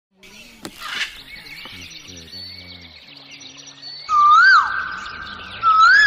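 Birds chirping in the background. About two-thirds of the way in, a loud wailing tone swoops up and down and holds for over a second, then swoops again near the end.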